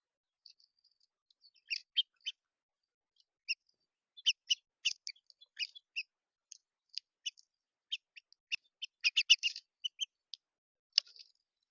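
Small birds at a feeder giving many short, high chirps, scattered and irregular, coming thickest about nine seconds in.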